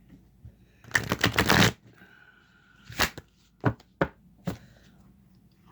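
A deck of large tarot cards being shuffled: a quick flurry of card snaps lasting under a second, then four separate sharp snaps of cards being tapped or slapped together.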